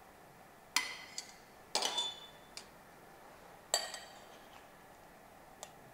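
Metal serving utensils clinking against ceramic plates and a serving dish: a handful of sharp clinks, some with a brief ring, the loudest about one, two and four seconds in.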